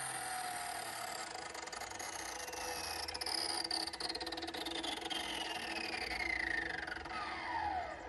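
Bauer 14-inch corded wet/dry concrete saw's 15-amp electric motor and blade coasting down after a cut through steel: a whine that falls steadily in pitch throughout, with some scratchy ticking around the middle. It takes a while to wind down.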